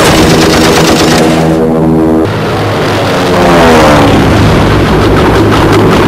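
Sound effects of an aircraft engine running, with rapid, evenly spaced machine-gun fire early and again near the end. In the middle, an engine sound falls in pitch as if an aircraft passes by.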